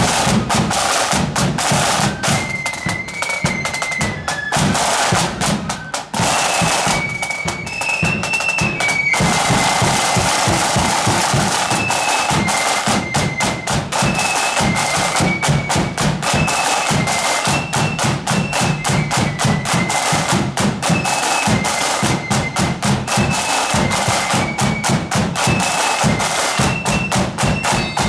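Marching flute band playing: flutes carry a melody over rapid, dense snare drumming and steady bass drum beats.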